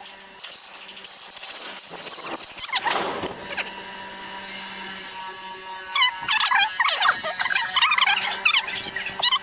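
Metal squeaking and scraping as a small gasoline engine is worked onto a thresher's steel frame. A few sliding squeaks come about three seconds in, then a rapid run of high squeals and scrapes from about six seconds to near the end.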